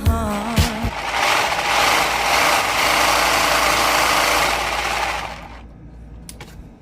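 Home-made syringe model engine running as a dense, even mechanical clatter, which cuts off about five and a half seconds in, leaving a few faint clicks.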